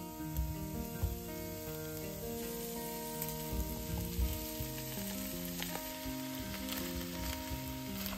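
Food sizzling in a frying pan, stirred with a spatula that knocks against the pan a few times, over background music of held notes.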